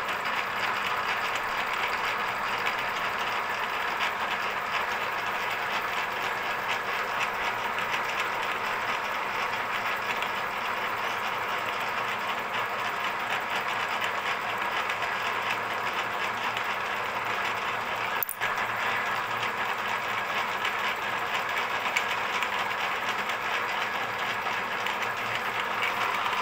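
Milling machine running steadily with a fast, even rattle, its spindle turning an edge finder. The sound dips briefly about eighteen seconds in.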